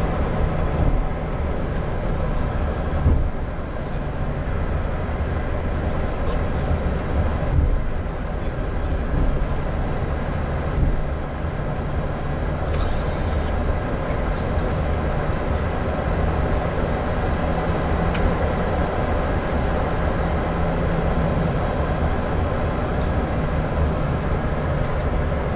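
Boeing 737-800 flight-deck noise while taxiing: a steady rumble from the CFM56 engines at idle and the airframe rolling over the taxiway, with a few soft bumps and a brief hiss about halfway through.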